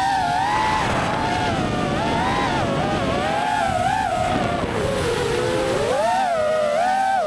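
FPV racing quadcopter's brushless motors whining, the pitch constantly rising and falling as the throttle changes.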